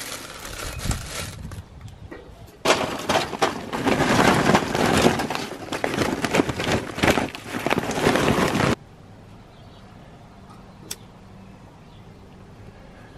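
Charcoal briquettes pouring from a paper bag into a metal chimney starter: a dense clattering rattle of many small lumps hitting metal and each other, lasting about six seconds and stopping abruptly. Before it there is a softer rustle of the bag being handled.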